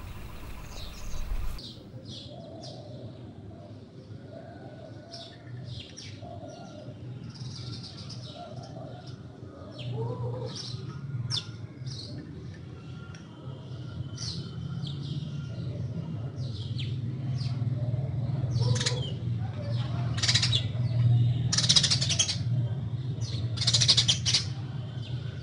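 Small birds chirping, many short high calls scattered throughout and coming thicker and louder near the end, over a steady low hum.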